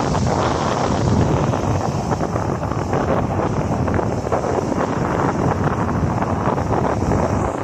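Rough sea surf churning and breaking, with strong wind buffeting the microphone in a steady low rumble and hiss.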